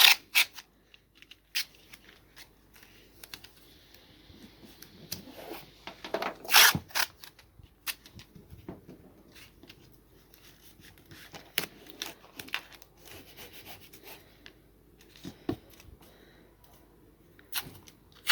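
Irregular handling noises: rustling and rubbing broken by sharp clicks and taps, the loudest about six and a half seconds in.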